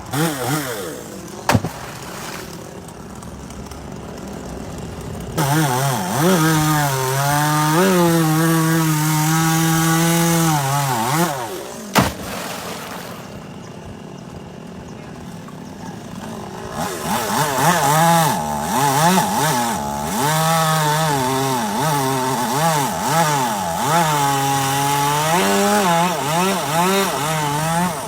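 Chainsaw engine running low, then twice revved up and cutting into wood for several seconds at a time. Its pitch dips and recovers as the chain bites, with a quieter spell between the two cuts.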